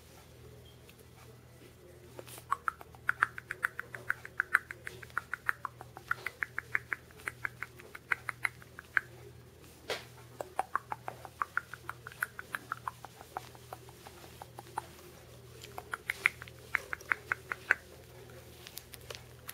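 Shih Tzu puppy giving rapid, high-pitched squeaks, about four or five a second, in three runs of a few seconds each.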